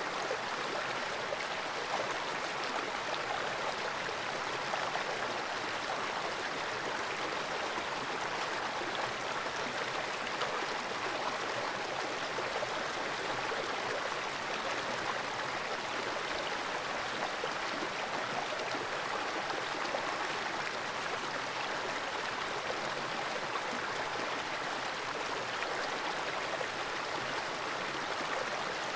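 Fast-flowing stream water rushing steadily through a small rocky pool, heard by a camera submerged on the gravel bed.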